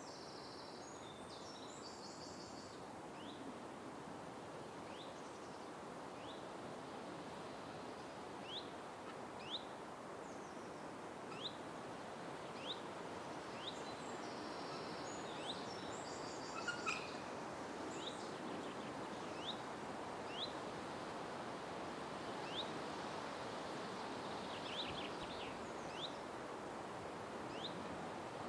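Night forest ambience: a steady background hiss with a small animal or bird giving a short, high, rising chirp about once a second, and brief clusters of other bird calls near the start and about halfway through.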